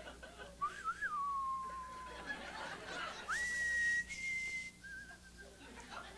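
A man whistling into a handheld microphone: a short wavering swoop that slides down into a long falling note, then a few higher held notes.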